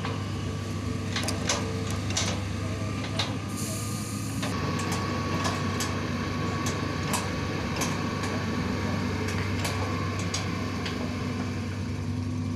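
Hitachi long-arm excavator's diesel engine running steadily as it digs and swings a bucket of soil, with scattered sharp metallic clanks from the boom and bucket. A thin steady whine joins in from about four seconds in and fades out near the end.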